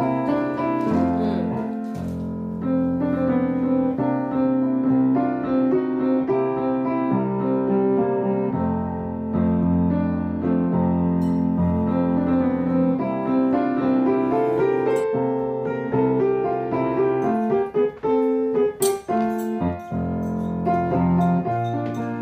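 Background piano music: a gentle melody over held chords.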